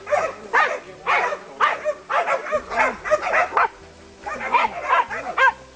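Hunting dogs barking and yelping in quick, excited bursts, about two a second, as they bay a wild boar, with a short lull partway through.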